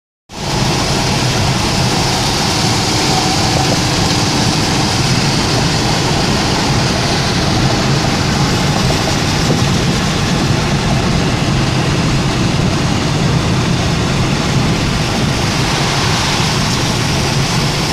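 Heavy thunderstorm rain pouring down steadily, a dense even hiss with a low rumble underneath.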